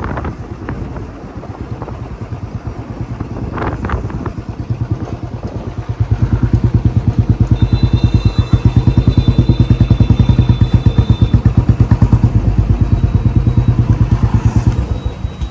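Motorcycle engine running at low speed as the bike rolls in, then louder from about six seconds in, ticking over with an even beat of about eight pulses a second.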